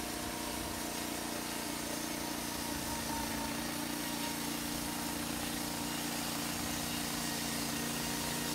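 Small gasoline engine of a portable band sawmill running steadily at an even pitch.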